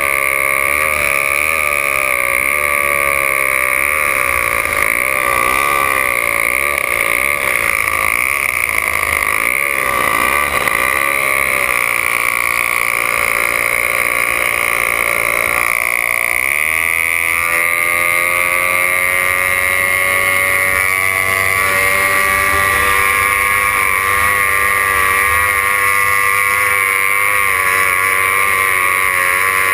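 Racing hydroplane's engine heard from onboard. Its pitch wavers up and down for the first dozen seconds, then about halfway through it revs up sharply and holds a high, slowly climbing note as the boat speeds up, with water rushing under the hull.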